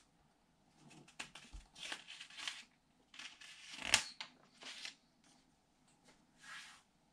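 A paper catalogue page being handled and turned over, rustling and crinkling in irregular bursts, with a sharp snap about four seconds in as the page flips.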